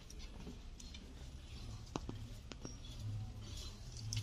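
A bundle of dry stalks for cooking fuel rustling faintly as it is carried and handled, with a few light clicks of stalks knocking together about two seconds in.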